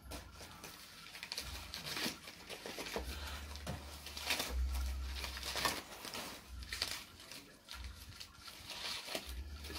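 Paper rustling and crumpling in irregular bursts as loose sheets are handled.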